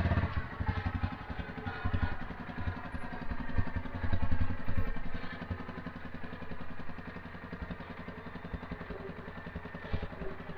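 Takeuchi TL12 skid steer's diesel engine idling with a steady low pulse, briefly louder about four seconds in.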